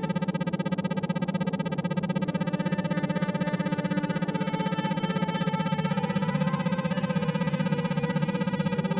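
Electronic meditation music: sustained synthesizer tones over a strong low drone, the whole sound pulsing rapidly on and off in the manner of isochronic tones. A few higher notes shift pitch slowly partway through.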